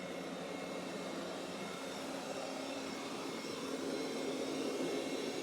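Roborock Qrevo S robot vacuum running, its suction fan and brushes making a steady whir with a constant hum. It grows a little louder about four seconds in.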